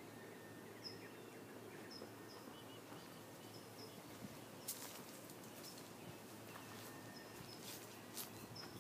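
Faint outdoor quiet with a small bird chirping: short high chirps every second or so, and a few sharp clicks in the second half.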